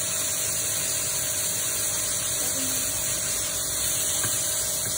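Espresso machine's pump running while coffee pours into a cup: a steady hum over an even hiss.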